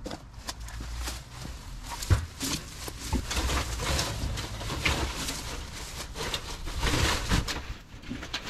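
Dry, overgrown grass rustling and crackling as it is grabbed and pushed through by gloved hands, an irregular run of short snaps and swishes.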